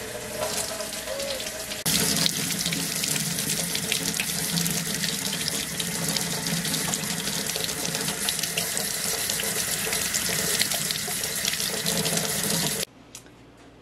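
Kitchen faucet running water into a glass mason jar of microgreen sprouts through its plastic sprouting lid, a steady rush of water into a stainless steel sink, filling the jar to rinse the sprouts. The flow gets louder about two seconds in and stops abruptly about a second before the end.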